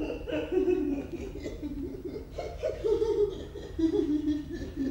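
A woman laughing without words, in short repeated spells.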